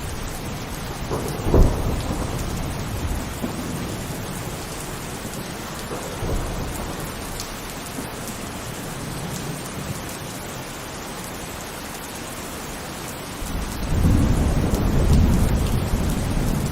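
Heavy rain falling steadily, with a sudden loud crack about a second and a half in and a low rumble of thunder swelling up near the end.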